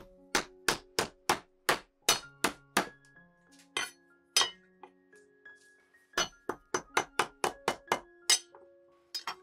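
A santoku knife repeatedly strikes a lemongrass stalk against a wooden cutting board to bruise it. The sharp knocks come about three a second in two runs, with a pause of a second or so in the middle.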